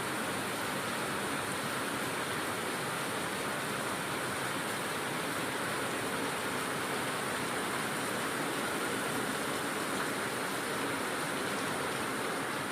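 Heavy rain pouring down, a steady even hiss with no change in strength.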